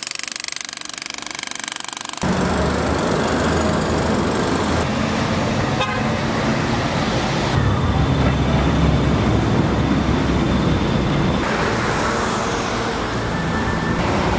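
A pneumatic jackhammer hammering into asphalt in a fast, even rattle, cut off about two seconds in. After that comes steady city street traffic, with cars driving past on the road.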